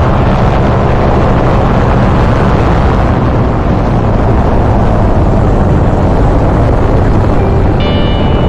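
Tandem paramotor's engine and propeller running steadily in flight, a loud even drone.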